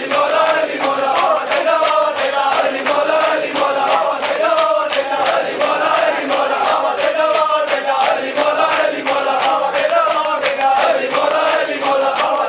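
A crowd of men chanting a noha together in a repeated phrase, over a steady rhythm of sharp slaps from hands beating on chests (matam).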